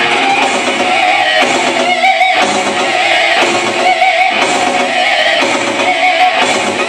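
Live band playing loud, led by an electric guitar riff. The riff repeats about once a second, with wavering, bent held notes.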